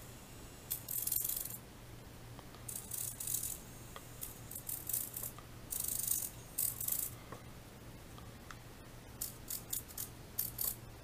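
Small hobby RC servo turning the model's wrist back and forth, running in a series of short high-pitched whirring bursts with pauses between them. The builder reckons the wrist may be binding a little.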